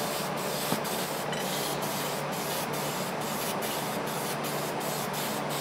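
Aerosol spray-paint can spraying in a steady hiss, with short breaks in the hiss about twice a second.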